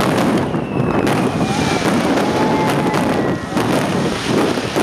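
Stadium fireworks going off: repeated sharp bangs over a dense crackling wash, with a few thin, slowly falling whistles.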